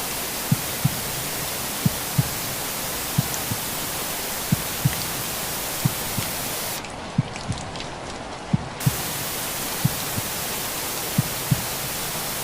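Recorded heartbeat sound, a slow lub-dub of paired low thumps about every 1.3 seconds, over a steady hiss of rain and white noise. The upper part of the hiss drops away for about two seconds in the middle.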